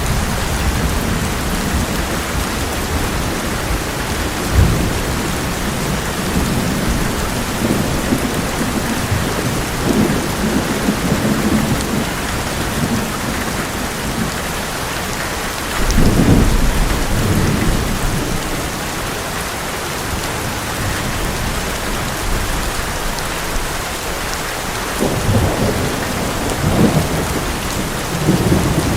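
Heavy rain drumming steadily on an old metal roof, with thunder rumbling several times: a sharp crack about four and a half seconds in, a longer loud rumble from about sixteen seconds, and more rolling rumbles near the end.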